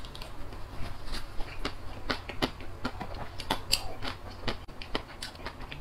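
Biting and chewing a chocolate-coated ice cream bar studded with nut pieces, close to a clip-on microphone: the coating cracks and crunches in irregular sharp clicks, several a second.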